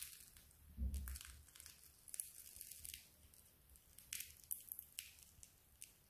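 Crisp fried batter fritter being pulled apart by hand, its crust crackling and tearing faintly in short irregular bursts, with a soft low bump about a second in.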